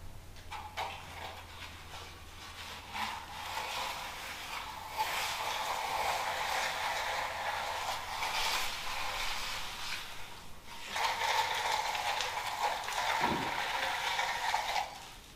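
Long-handled float scraping across a freshly poured, wet concrete floor as it is smoothed: a steady rough scraping in two long stretches with a brief pause about ten and a half seconds in.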